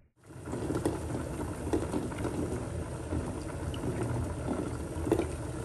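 Pot of brown lentils with onions and spices boiling on the stove: a steady bubbling with small scattered pops.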